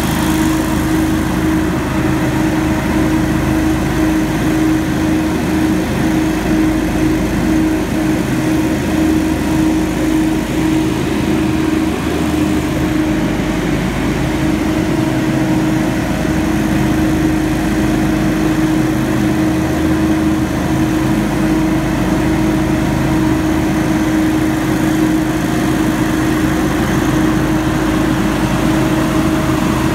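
Hurricane X3 stand-on leaf blower running steadily as it blows leaves: a constant engine drone and rush of air with a steady hum.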